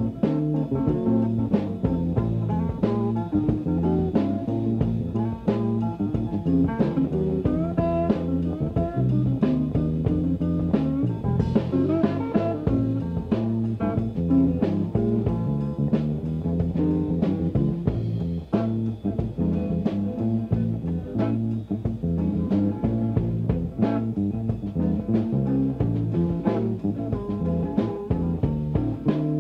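A small band playing a blues-style instrumental: guitar lead over bass guitar and drum kit, on a steady beat, with some bent guitar notes near the middle.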